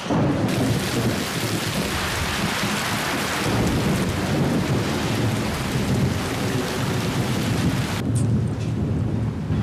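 Heavy rain pouring down, with thunder rumbling low underneath in slow swells. The rain's hiss drops away about eight seconds in, leaving the low rumble.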